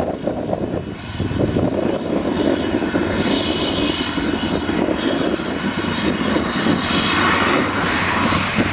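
Claas Jaguar 850 self-propelled forage harvester running under load as it chops grass and blows it into a trailer: a steady, heavy engine and machine drone, with a rushing hiss that swells through the middle.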